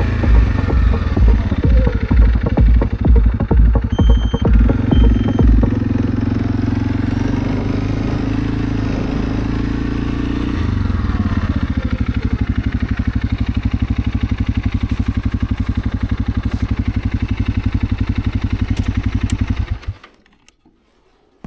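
ATV engine running, with a low pulsing throb at first and then a steady, rapid firing beat as it idles. The engine cuts off abruptly near the end.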